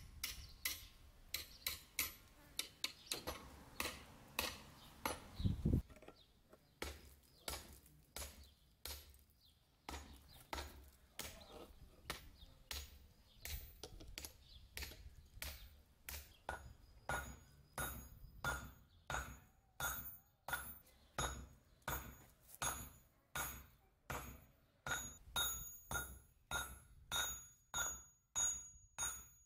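Hammer blows on steel rebar at a forge, striking at a steady rhythm of about two blows a second. From roughly halfway on, each blow rings with a bright metallic ping off the anvil.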